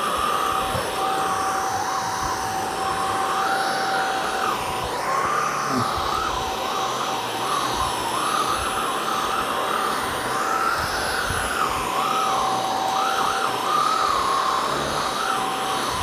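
Eureka Elevate cordless stick vacuum running as its motorised brush-roll head is pushed across carpeted stair treads. It gives a steady high whine with a second pitch that wavers up and down as the head moves over the carpet.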